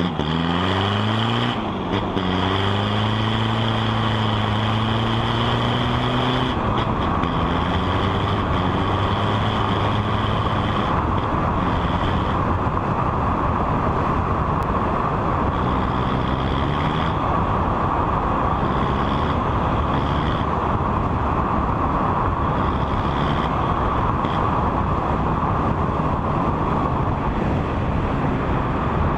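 Motor vehicle engine running while driving over steady road noise. The engine's pitch rises and falls several times as it speeds up and changes gear.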